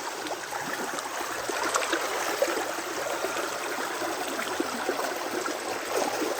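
Shallow river water rushing and trickling steadily over rocks, with small scattered splashes.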